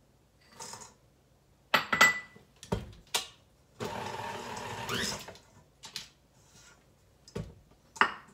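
Knocks and clunks as a KitchenAid stand mixer and its bowl are handled, then the mixer's motor runs for about a second and a half, rising in pitch briefly before it stops, followed by a few more knocks.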